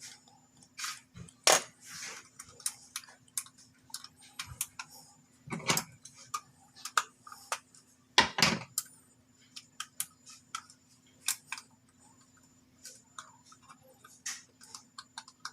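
Irregular small clicks, taps and scrapes of the Freewolf X8's parts being handled and pried apart by hand, with a faint steady hum underneath.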